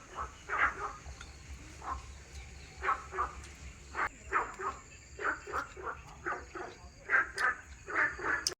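Short animal cries repeated irregularly, some falling in pitch, coming closer together about halfway through.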